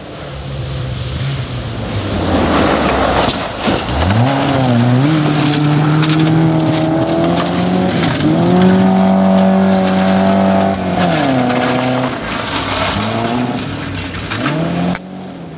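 Volvo rally car's engine at high revs on a gravel stage. About four seconds in the revs climb and hold high, with a brief dip and a step up. They fall away a little after the middle and rise again near the end, before the sound cuts off suddenly.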